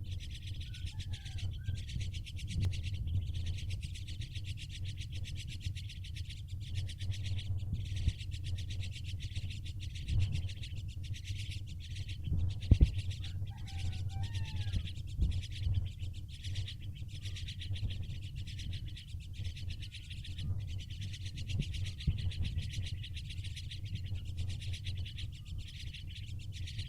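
Starling giving a few faint whistled calls, about a second in and again around thirteen seconds in, over a steady low hum and a high hiss.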